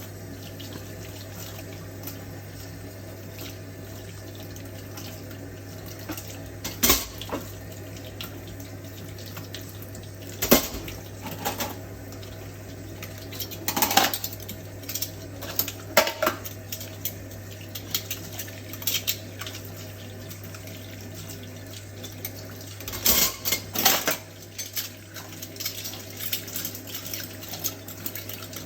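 Water running from a kitchen tap into a sink as dishes are washed, with dishes and cutlery clinking and clattering now and then, the loudest knocks about seven, ten, fourteen and sixteen seconds in and a cluster near the end, over a steady low hum.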